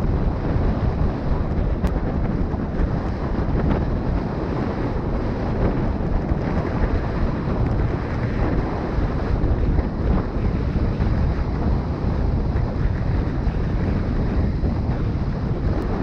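Wind buffeting the microphone of a camera carried on a moving road bike, a steady rushing noise heaviest in the low end.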